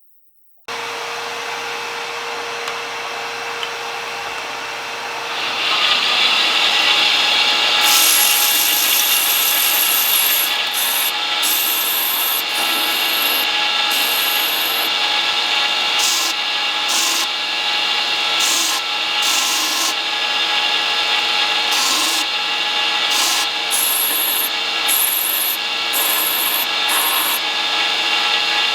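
Power grinder running on the steel of an old file, grinding the tang to shape. The tool starts with a steady hum, then grows louder about five seconds in as it bites into the metal, with a hiss that comes and goes as the work is pressed on and lifted off.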